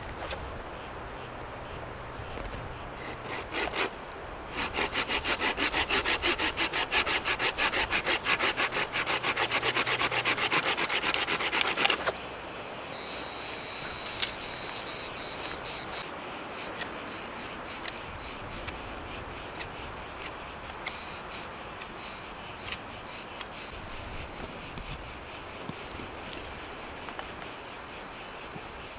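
A small folding saw cutting through a dry branch in quick back-and-forth strokes, starting about four seconds in and stopping abruptly about halfway through. A steady, high, pulsing chorus of cicadas runs underneath and grows louder after the sawing stops.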